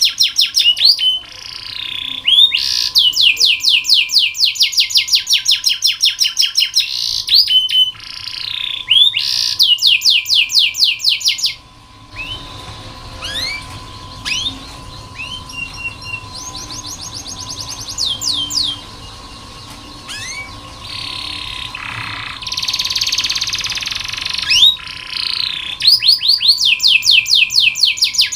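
Domestic canary singing fast trills, long runs of quickly repeated falling notes, broken by short pauses. Through the middle the song turns quieter and more scattered before the loud trills return near the end. A faint steady tone hums underneath.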